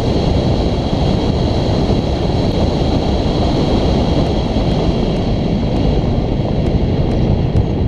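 Wind buffeting the microphone of a bicycle-mounted camera moving at speed: a loud, steady rumble with no let-up.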